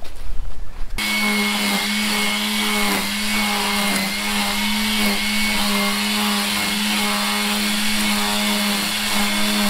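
Ryobi battery-powered line trimmer starting about a second in and running steadily with an electric-motor whine while trimming grass, its pitch dipping briefly twice.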